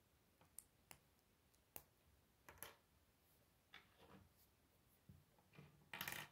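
Faint, scattered clicks and taps of plastic K'Nex construction pieces being handled and set down on a wooden table, with a louder clatter of pieces near the end.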